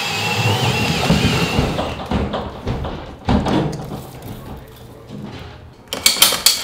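A high wavering tone with a noisy bed fades out about two seconds in, then come scattered knocks and thumps from handling the fittings. Near the end a hand saw starts cutting plastic line-hide cover in quick, loud strokes, about five a second.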